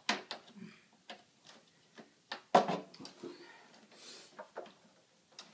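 Clicks and knocks from a shower chair's metal tube frame and plastic seat as they are handled and swivelled, with one sharp, louder knock about halfway through.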